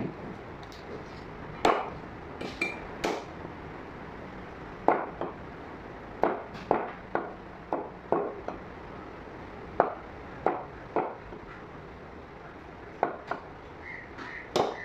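Knife blade striking a wooden chopping block as mutton is cut into pieces: about fifteen sharp, irregular knocks with pauses between them.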